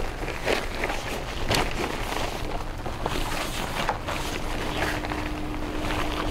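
Fabric rustling in irregular bursts as a sheet is pulled out and handled, over wind buffeting the microphone.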